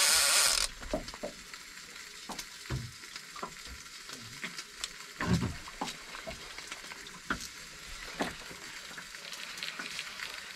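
Loud rushing noise that cuts off suddenly just under a second in, then light crackling water noise with scattered small clicks and knocks from a small fishing boat, one knock louder about halfway through.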